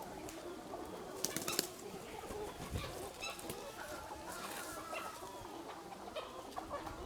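A flock of Leghorn hens clucking softly and flapping their wings, with a brief flurry of rustling wingbeats about a second and a half in.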